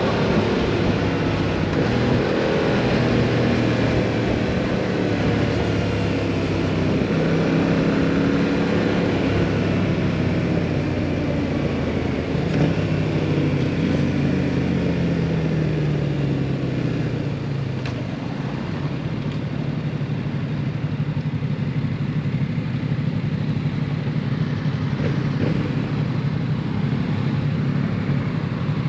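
2022 Yamaha MT-07's parallel-twin engine through a full Akrapovic exhaust, revs falling steadily for about seventeen seconds as the bike comes off the throttle. It then settles to a steady low-rev note.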